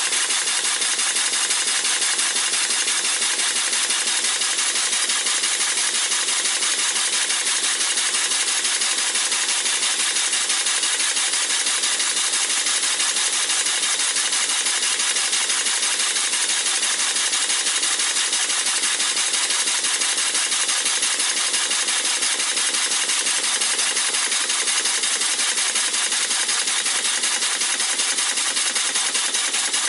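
Model Stuart Turner beam engine running on compressed air: a steady, loud hiss of exhausting air with a fast, even beat from the cylinder.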